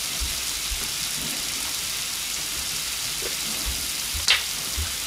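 Sausages and vegetables sizzling in a frying pan, a steady hiss, with one sharp click about four seconds in.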